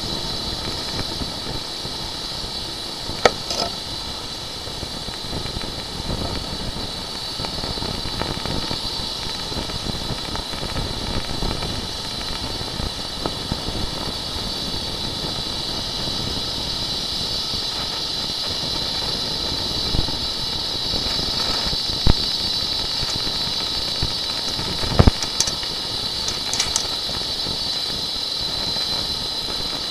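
Steady mechanical hiss and hum with a high whine, broken by a few short sharp knocks, one about three seconds in and several in the last third.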